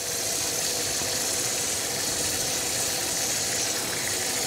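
Carrots sizzling steadily in a hot frying pan of butter and chicken stock.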